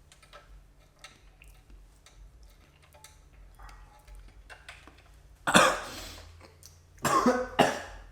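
A man coughing: three loud, harsh coughs in the second half, after a few seconds of faint clicks and handling noise.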